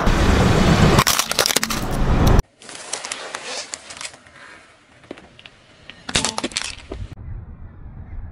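A car tyre rolling over and crushing objects on asphalt: loud cracking and crunching of a plastic toy for about the first two seconds, then after an abrupt cut softer crackling with a short burst of cracks past the middle as a bundle of cigarettes is rolled over.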